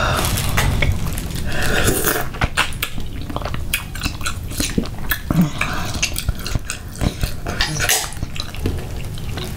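Close-miked wet eating sounds of saucy seafood eaten by hand: smacking, sucking and chewing. Many short sharp clicks and smacks are scattered throughout.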